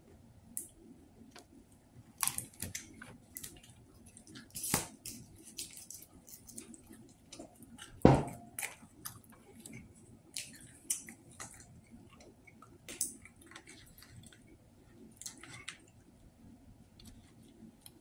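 Close-up eating sounds: chewing and wet mouth noises on fried fish, with scattered small clicks and crackles from handling the food, and one loud knock about eight seconds in.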